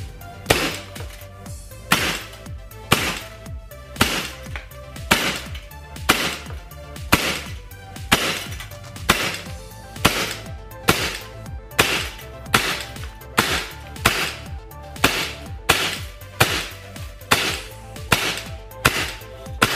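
CO2-powered M9A1 airsoft pistol firing shot after shot at a steady pace, roughly one or two a second, into a chronograph to measure muzzle velocity. Background music plays underneath.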